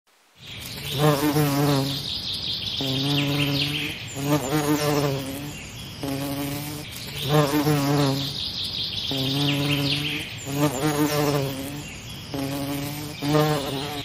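Buzzing of flying insects, swelling and fading in repeated passes about every second and a half, with a higher trilling above the buzz.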